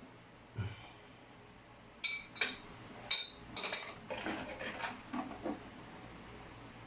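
Hard objects being handled: a soft knock, then a quick cluster of sharp metallic clinks with brief ringing about two seconds in, followed by softer knocks and rattles.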